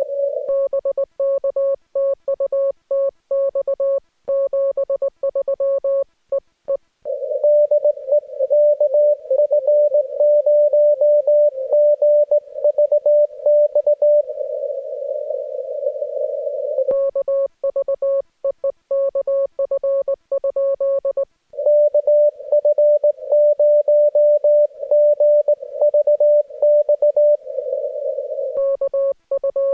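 Amateur radio CW contact in Morse code: the operator's own crisp keyed sidetone takes turns with the other station's replies. The replies are a slightly higher beep heard through the receiver's hiss, with short stretches of plain hiss between the overs.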